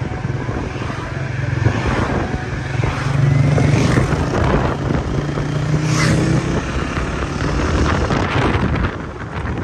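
Engine and road noise of a moving vehicle, a steady low drone, with other traffic passing close by, including a motorcycle about four seconds in.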